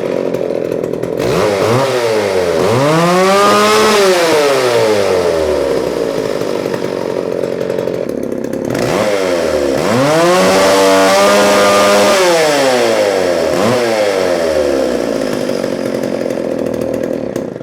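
Vintage McCulloch PM610 two-stroke chainsaw running, revved up to a high scream twice and dropping back to idle in between, then cut off abruptly near the end.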